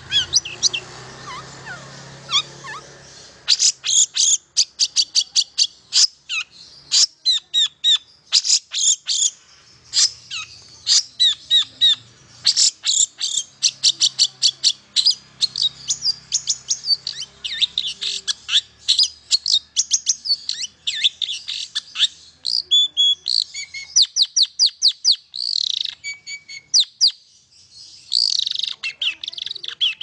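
Long-tailed shrike (cendet) singing: rapid runs of short, sharp, high chirps and whistled notes, several a second, broken by brief pauses.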